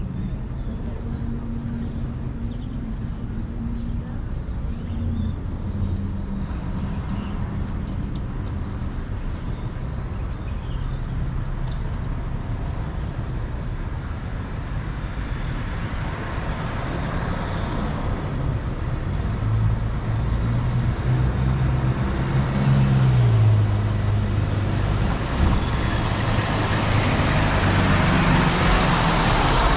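Car driving on a street: a steady engine hum under road and tyre noise, the noise growing louder over the last third.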